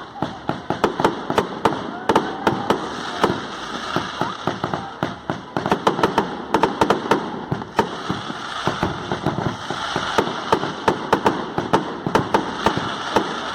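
Castillo fireworks going off: a rapid, irregular string of firecracker cracks and bangs, several a second, over a steady hiss, with denser clusters around the middle and again near the end.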